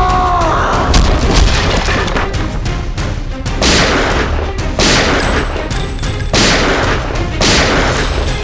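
Dramatic action background score with a low rumble, a pitch sweep at the start, and a series of heavy booming hits with echoing tails, several of them a second or so apart in the second half.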